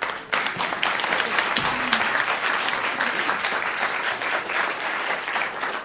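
Audience applauding in a hall, starting suddenly and holding steady.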